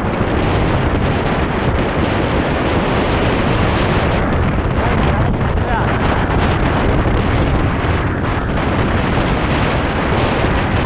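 Steady wind rushing over an action camera's microphone on a moving mountain bike, with tyres rolling over the road surface underneath.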